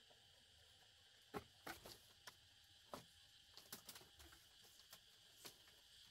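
Faint, irregular clicks and taps, about a dozen scattered through the second half, over a quiet steady hiss.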